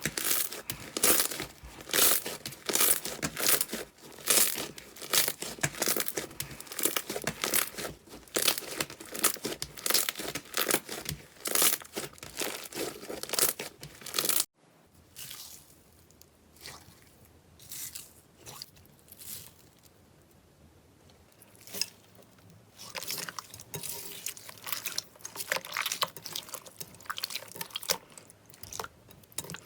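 Slime being squished and kneaded, giving a dense run of crackling, crunching pops. About halfway through it cuts suddenly to a quieter stretch with sparser, softer crackles.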